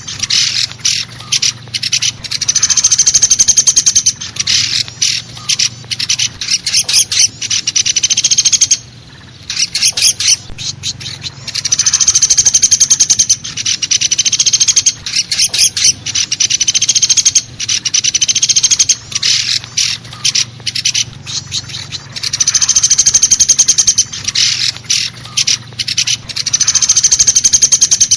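Pelatuk besi woodpecker calling in rapid, rattling note series, played as a looped lure call. Long rattles of a few seconds alternate with shorter, broken bursts. A faint low hum sits under it.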